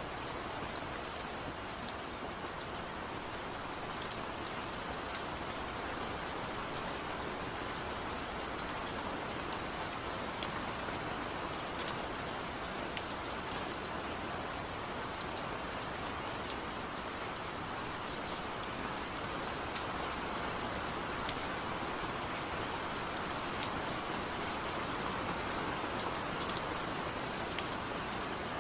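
Steady rain falling, with individual drops ticking sharply now and then over the even hiss.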